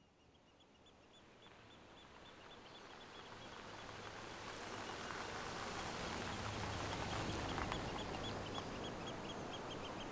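An animal's short chirping call, repeated rapidly and evenly, fading in over a soft ambient hiss and low rumble that grows louder for the first five seconds and then holds steady.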